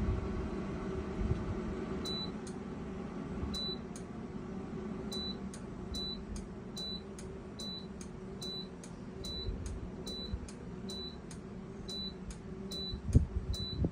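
BRUNO smart air fryer running with its fan humming steadily while it gives short, high, clicky beeps: two about a second and a half apart, then a regular string of about one beep a second. The owner calls this intermittent beeping abnormal, a fault that comes and goes, sometimes single beeps and sometimes in a row. A low knock sounds near the end.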